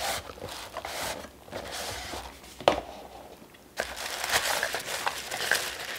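Cardboard and tissue paper being handled: a box's inner tray sliding out of its sleeve with a rustle, then one sharp tap a little before three seconds in. About four seconds in, tissue paper starts crinkling and rustling as it is unfolded.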